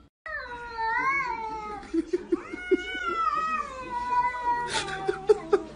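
A cat meowing in long, drawn-out, wavering yowls, two calls running over about four seconds. A few sharp clicks follow near the end.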